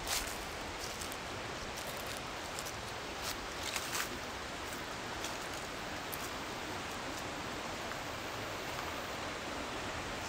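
Steady outdoor hiss, with a few light rustles of leaves in the first half.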